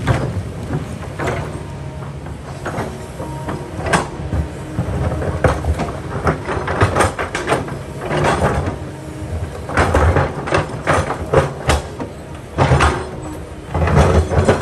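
Kobelco excavator's diesel engine running steadily, with its steel bucket scraping and knocking against large rocks in a string of clatters and grinding scrapes.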